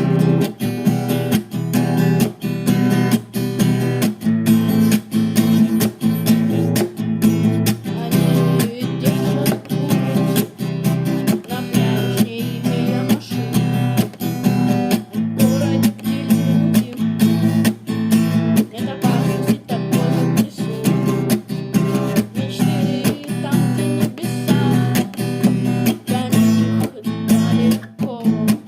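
Acoustic guitar strumming chords in a steady rhythm, an instrumental passage of a song with no singing.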